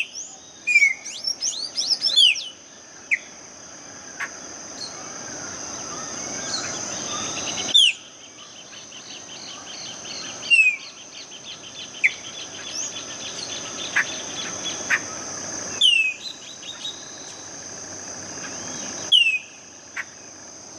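Birds calling and chirping over a steady high insect buzz: loud, sharp calls that slide downward recur every few seconds, with a flurry of chirps near the start and a fast trill a little after the middle. The background changes abruptly a few times, as if spliced.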